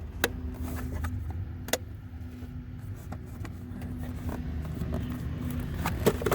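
Plastic cabin air filter lid being pressed back into its housing behind the glove box, giving a few sharp clicks as its tabs latch into place, over a steady low hum.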